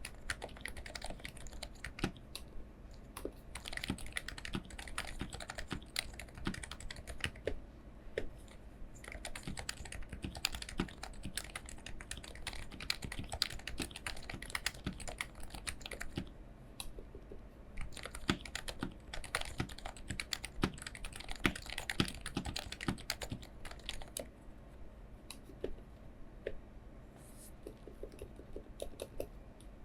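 Typing on a Realforce R3S keyboard with lubed Topre electrostatic capacitive switches and stock keycaps: a steady run of rapid key strokes that thins to sparse presses a few times, most clearly in a longer lull about three quarters of the way through.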